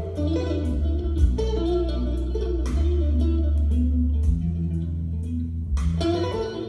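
A vinyl record playing on a MAG-LEV ML1 levitating turntable, reproduced through a pair of stereo bookshelf speakers and heard in the room: guitar music over a steady bass line, with a short break about six seconds in.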